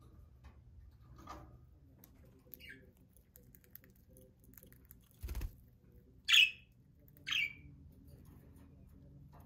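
Pet budgerigars chirping: a few faint short chirps, then two loud, short chirps a little past the middle. A dull knock comes just before the loud pair.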